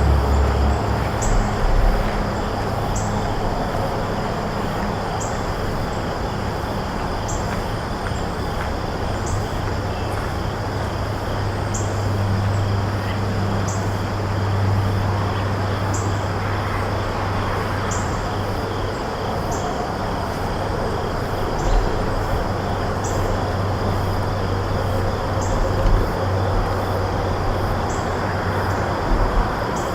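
Outdoor ambience: a steady low rumble like distant road traffic under a steady high drone, with a short high chirp repeating every second or two.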